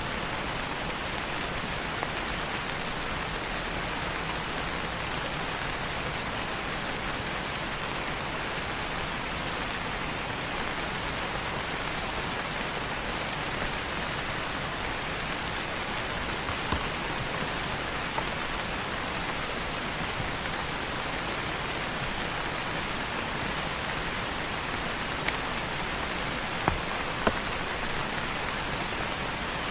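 Steady rain falling on leaves, an even hiss with a few louder single drops striking close by in the second half.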